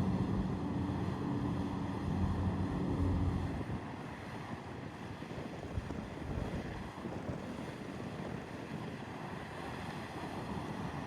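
Wind buffeting the microphone with waves, and a low engine drone from a boat that fades out about three and a half seconds in.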